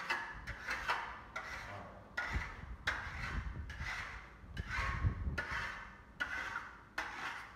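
A steel plastering tool scraping and rubbing over Venetian plaster on a wall, in quick, uneven strokes about two a second.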